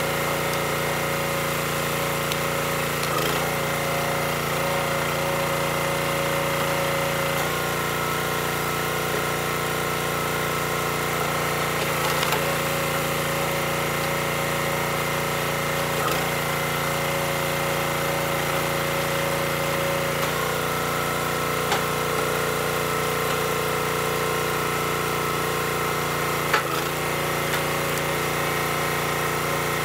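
Small gasoline engine of a Black Diamond hydraulic log splitter running steadily under load as the ram drives a firewood round through the wedge. Its note changes a couple of times, and a few short sharp cracks come as the wood splits.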